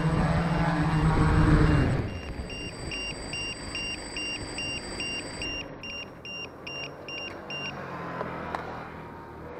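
Multirotor drone's motors humming steadily, then cutting off about two seconds in as it settles on the ground. A fast run of short, high electronic beeps follows, about three a second, for several seconds.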